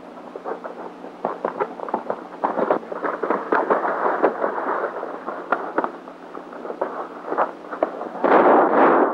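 A horse galloping on a dirt road, its hoofbeats coming as irregular sharp thuds. About eight seconds in, much louder gunfire breaks out.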